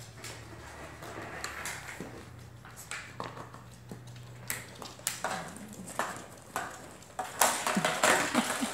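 Shih Tzu puppies playing with an empty plastic water bottle: scattered knocks and crackles of plastic and paws. It gets louder and busier near the end, with a few brief puppy whines.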